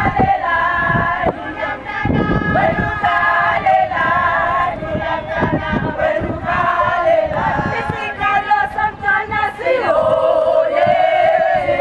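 A group of women singing together in chorus, with many long held notes.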